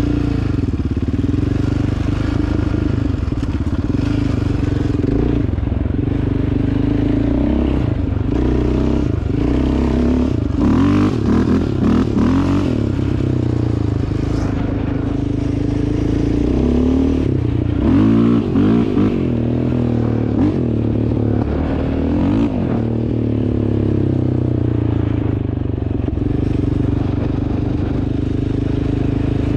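Yamaha Raptor 700R ATV's single-cylinder four-stroke engine running under way, revving up and down repeatedly through the middle stretch and steadier near the start and end, with some knocks and rattles in the middle.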